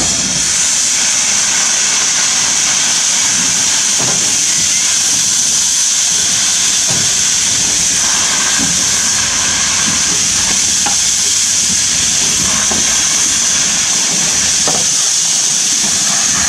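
Peckett 0-4-0 saddle-tank steam locomotive letting off steam: a loud, steady hiss as it draws its wagons slowly along.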